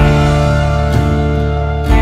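Instrumental background music: held chords over a strong bass, with new notes coming in about once a second.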